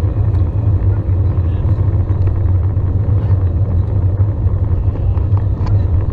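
Airbus A320 taxiing, heard from inside the cabin: a steady low hum from the engines at taxi power, with rumble.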